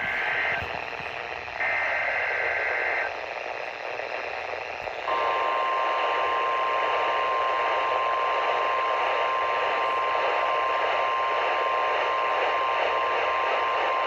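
NOAA Weather Radio Emergency Alert System signal heard over steady radio static: the tail of one SAME header data burst and then a second full burst of buzzing digital tones, and about five seconds in the 1050 Hz warning alarm tone starts and holds steady. The signal announces a tornado watch alert.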